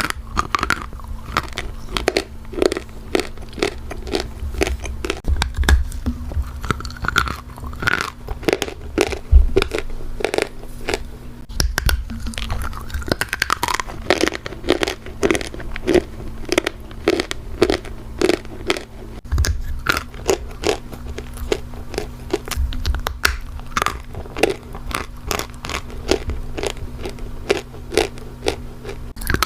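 Close-miked biting and chewing of dry, hard Turkistan clay in big bites, with many sharp, irregular crunches throughout. A steady low hum runs underneath.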